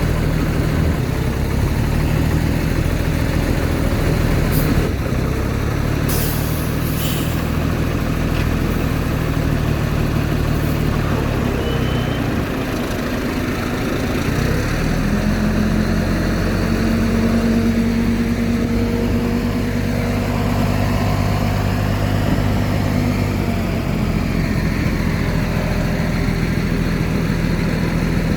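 Heavy diesel engine of earthmoving machinery running under changing load. Its note drops briefly about halfway through, then rises and holds higher for several seconds before settling back. A few short clanks come early on.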